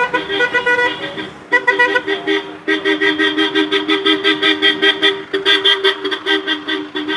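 Several car horns honking together in rapid, repeated short beeps at different pitches as a line of vehicles passes; the honking grows denser about two and a half seconds in.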